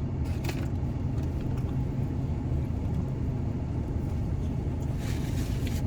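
Steady low rumble of a car engine idling, heard from inside the cabin, with a couple of faint clicks and a brief rustle.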